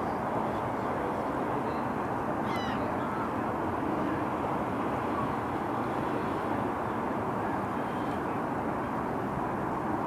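Steady outdoor background rumble, typical of distant city traffic, with a brief high wavering chirp about two and a half seconds in.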